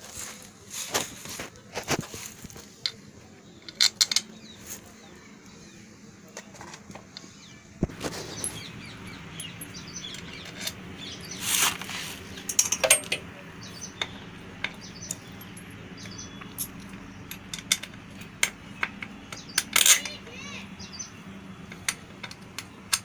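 Irregular light metallic clicks and clinks of small bolts being handled and fitted by hand into a motorcycle engine's side cover. A steady low hum comes in about eight seconds in.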